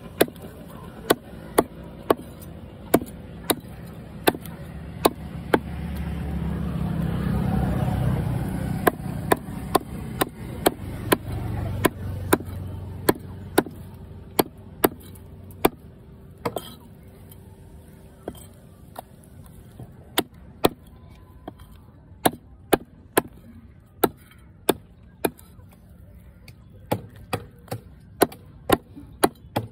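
Heavy chopping knife hacking a duck carcass into pieces on a wooden chopping block: sharp chops, about one or two a second, in runs with short pauses.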